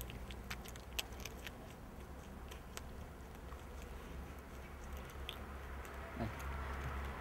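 Coypu (nutria) gnawing and chewing a treat held in its forepaws, its incisors giving scattered sharp clicks over a low steady rumble.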